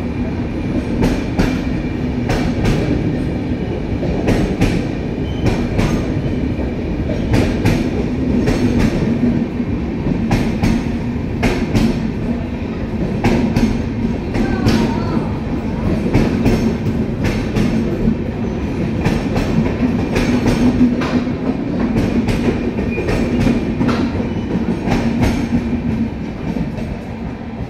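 Express passenger train running through a station close by without stopping: wheels clattering over rail joints in an uneven run of sharp clicks over a steady low hum, dropping away near the end as the last coach passes.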